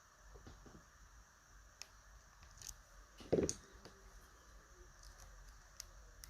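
Lockpicking tools working a TESA T-12 lock: faint scattered clicks and handling taps, with one louder knock about three and a half seconds in.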